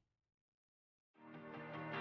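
Silence for about a second, then background music fades in.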